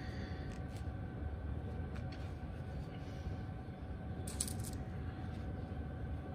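Steady low hum of the room, with faint clicks and a brief clatter of small stones and paper towel about four seconds in as tumbled rocks are dried by hand and set down on paper.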